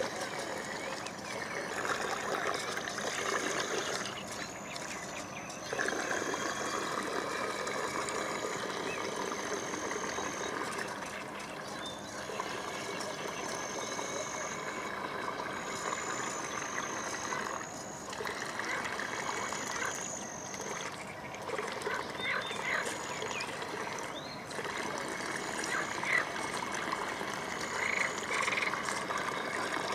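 Water churning and splashing from a small homemade RC boat's motor-driven paddle blades as it runs on open water. Short high animal calls repeat every second or two throughout.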